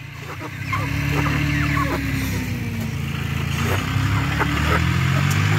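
Small tractor engine running steadily and growing louder, with short bird calls over it.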